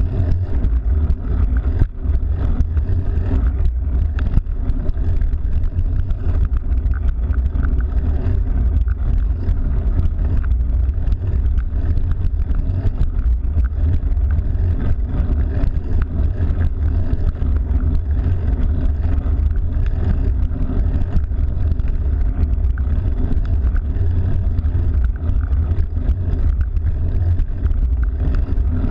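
Steady low rumble of wind buffeting the microphone of a camera on a moving bicycle, with a rough noise spread above it.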